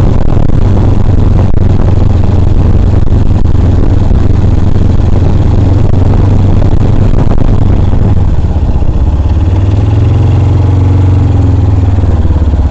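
Amazonas 250cc motorcycle engine running under the rider, loud and steady; about two-thirds of the way through the engine note eases off and settles toward idle.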